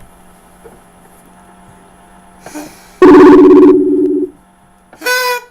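Outgoing ringing tone of a video call, a loud steady two-note tone that starts about three seconds in and lasts just over a second, with a brief higher-pitched sound near the end.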